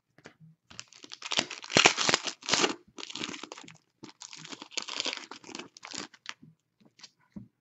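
Clear plastic wrapper crinkling and tearing in the hands. The crackling is loudest from about a second in to three seconds in, carries on more lightly until about six seconds in, and then stops.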